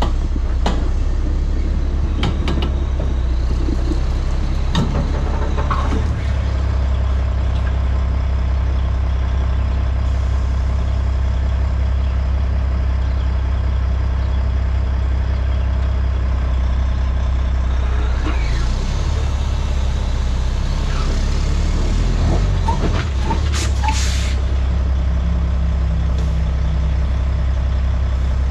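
Heavy dump truck's diesel engine running steadily as the truck and pup trailer maneuver, with short air-brake hisses now and then, the strongest cluster near the end.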